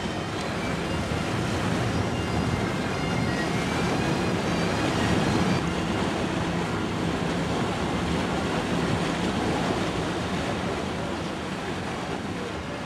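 Boat engine running steadily with a low drone, over the wash of water and wind on the microphone.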